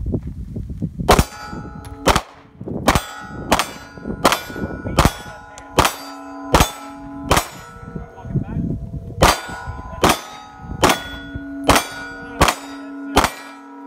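A string of gunshots, about one every three-quarters of a second with a short pause near the middle, each hit answered by steel targets ringing.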